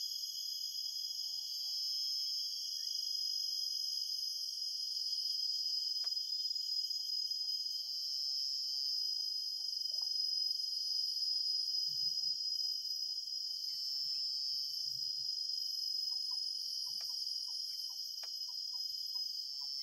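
Steady, high-pitched chorus of insects such as crickets, several singing at different pitches without a break. A faint, quick ticking joins in near the end.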